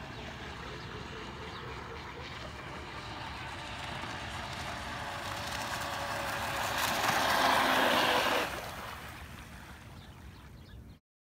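Pro Boat Stiletto 29 RC speedboat's brushless electric motor whining at a steady pitch with a hiss of water under the hull. It grows louder as the boat runs in close, is loudest about seven to eight seconds in, then drops away quickly as it moves off. The sound cuts off abruptly just before the end.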